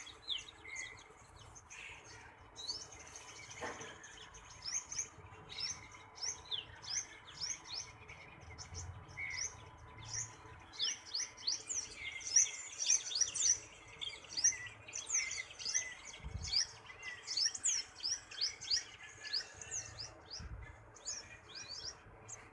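Small birds chirping rapidly: many short, high chirps that slide down in pitch, overlapping, busiest in the middle.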